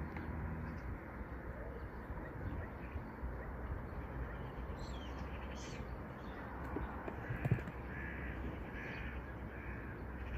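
Birds calling: a run of about five short calls in the second half, over a steady background hiss. A single knock sounds about seven and a half seconds in.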